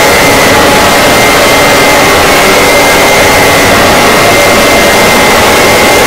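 Mock emergency alert system (EAS) alarm, heavily distorted and clipped: loud, harsh static-like noise with a steady high tone buried in it, at a constant, maxed-out level.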